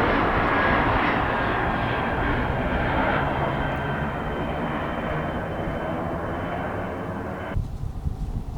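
An airplane droning overhead, slowly fading as it passes. A little before the end it cuts off abruptly, leaving gusty wind on the microphone.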